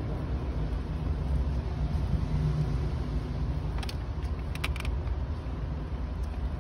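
A lurcher chewing frozen raw rabbit, with a few short crunches about four seconds in, over a steady low rumble.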